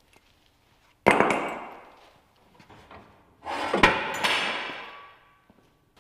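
Heavy steel parts clanking: two loud metal clanks, about a second in and near four seconds, the second after a short rattle. Each rings and fades away over about a second.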